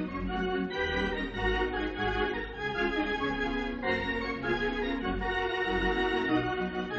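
Organ music accompaniment: sustained chords, the harmony changing about a second in and again around four seconds in.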